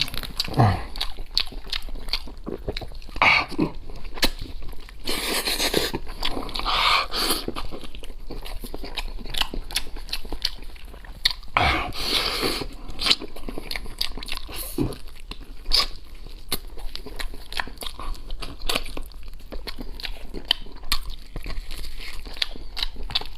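A person eating red-braised goat leg close to the microphone: biting, chewing and lip-smacking, heard as a dense, irregular run of wet clicks and crunches.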